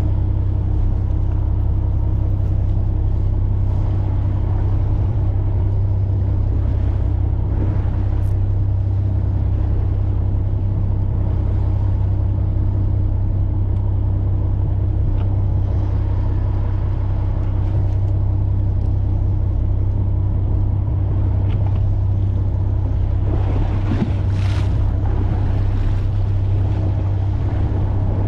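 Fishing boat's engine running steadily, a low even drone. A short rushing noise comes near the end.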